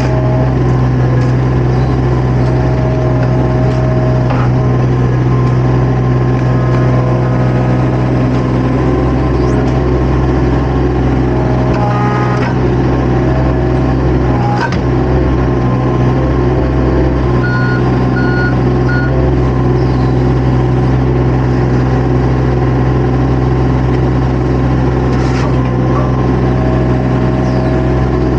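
Diesel engine of a compact construction machine running steadily and loudly. A few brief knocks can be heard, and three short beeps come about two-thirds of the way through.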